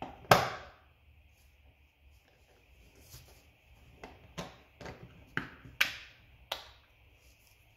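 Small metal clicks and taps of an outboard fuel pump's parts and the locking pliers clamped on it, as the pump halves are slid together over screws used as alignment pins. One sharp click about a third of a second in, then a string of light, irregular clicks from about three seconds on.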